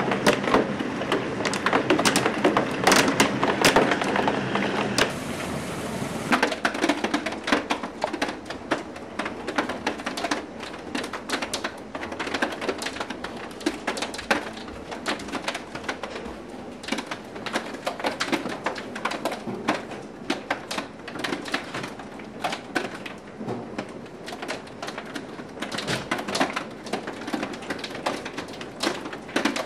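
Hailstorm with heavy rain: a dense, irregular clatter of hailstones striking hard surfaces over the steady hiss of rain. It is heaviest for the first six seconds or so, then eases a little.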